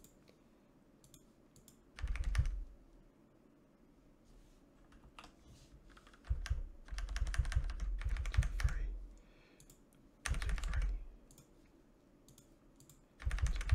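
Computer keyboard keys pressed in short clusters of quick strokes, with pauses of a few seconds between clusters; the longest run comes in the middle.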